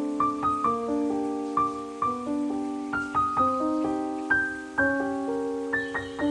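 Background piano music: gentle, slow notes and chords, each struck and left to ring and fade.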